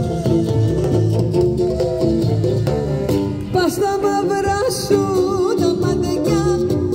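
Live band playing a song, plucked strings over a steady low pulse, with a voice singing in about halfway through.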